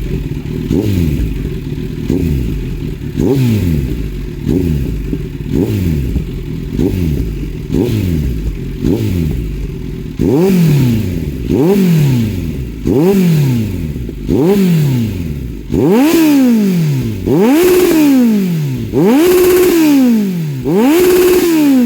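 Kawasaki Z900 inline-four with a Two Brothers full-system exhaust, revved again and again at standstill in quick throttle blips about once a second. From about ten seconds in the revs climb higher and last longer, and the last few are held briefly at the top. The note is deep and bassy and does not crackle.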